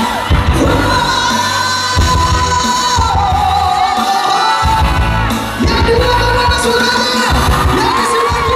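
Male singer singing long held notes into a microphone over a live pop band with drums and bass, loud and steady.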